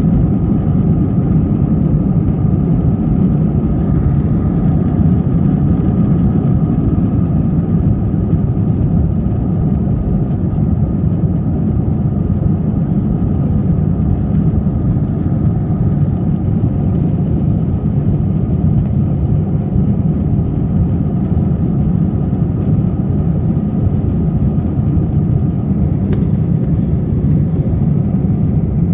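Airbus A320's IAE V2500 turbofan engines at takeoff thrust, heard from inside the cabin: a loud, steady, deep noise with a faint steady whine above it, through the end of the takeoff roll, liftoff and initial climb.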